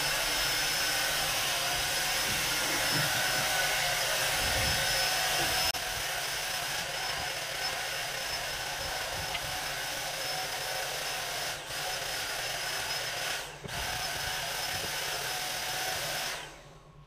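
Handheld electric paint sprayer running as paint is sprayed onto a cabinet: a steady hiss with a thin high whine, dipping briefly twice and cutting off near the end.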